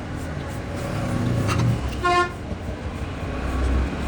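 A vehicle horn gives one short toot about two seconds in, over a steady low rumble of passing road traffic.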